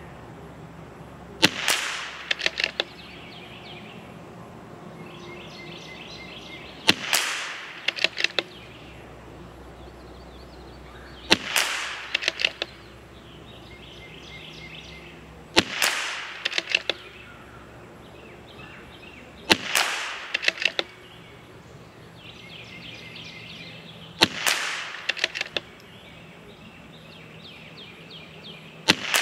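.22LR CZ 457 MTR bolt-action rifle fired shot by shot, about every four to five seconds, six shots with a seventh right at the end, each shot followed by a quick run of clicks from the bolt being cycled. Birds sing between the shots.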